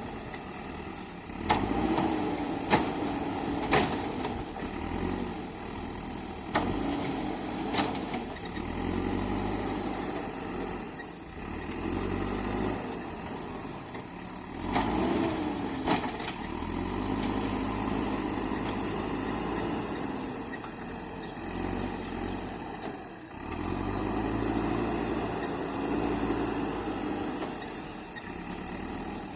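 JCB 3DX backhoe loader's diesel engine running and repeatedly revving up and easing off as the hydraulics take load. Several sharp metallic knocks come in the first few seconds and again around the middle.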